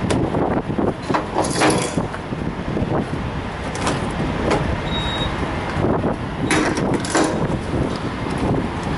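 Heavy trucks' diesel engines running steadily, with a few short bursts of noise and one brief high beep about five seconds in.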